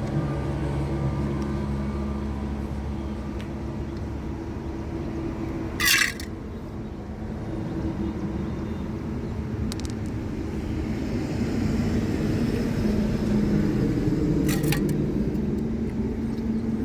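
A vehicle engine running steadily, a low drone that swells a little in the second half, with two short sharp bright bursts, one about six seconds in and one near the end.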